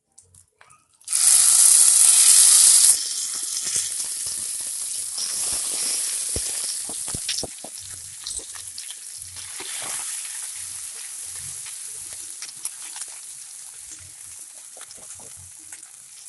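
Thick ground mint chutney paste going into hot sesame oil with spluttered mustard seeds: a loud burst of sizzling about a second in. After about two seconds it settles to a steadier frying sizzle with small clicks of stirring, slowly getting quieter.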